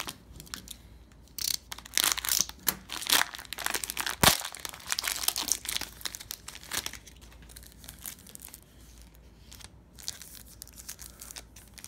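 Cellophane wrapper of a Panini Prizm basketball cello pack crinkling and tearing in irregular bursts, with one sharp crackle about four seconds in.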